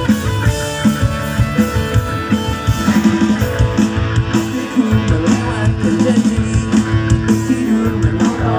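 A pop-punk band playing live: electric guitars with held chords over a steady drum-kit beat.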